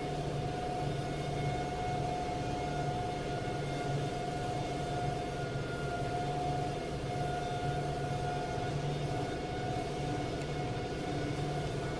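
A steady machine hum, a held whining tone over a low drone, with no change in pitch or level.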